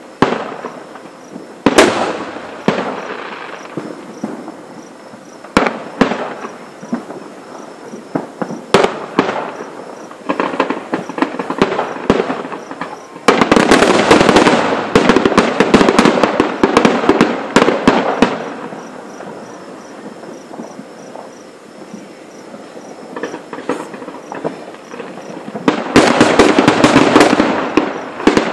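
Aerial fireworks going off: a few scattered sharp bangs, then a dense rapid barrage of bangs and crackling for about five seconds midway, and another dense barrage starting near the end.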